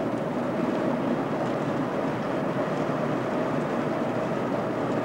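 A steady, even drone of noise with no distinct events, like running machinery.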